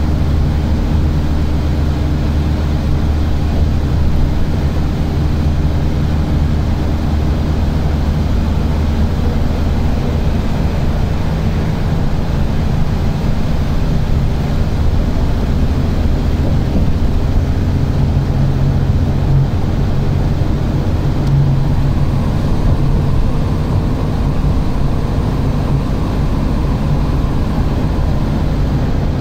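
Steady road noise inside a car cruising at highway speed: a low, continuous rush of tyres, wind and engine hum.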